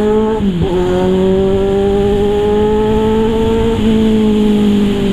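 Kawasaki Z1000 inline-four engine pulling under way. Its note dips briefly about half a second in, as at a gear change, then climbs steadily and eases off again near the end.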